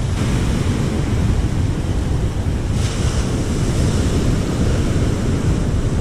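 Surf breaking and washing up the beach, with wind buffeting the microphone in a steady low rumble; the hiss of the wash swells briefly about three seconds in.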